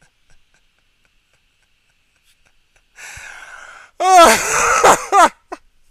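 A man draws a sharp breath in, then lets out one loud, sudden sneeze about four seconds in.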